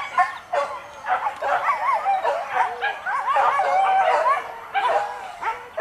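Several hunting dogs yelping and baying, with many high, bending cries overlapping almost without pause, as they chase a wild boar.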